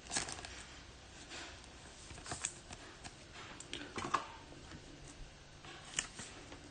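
Faint, scattered clicks and rustles of trading cards being handled and turned over.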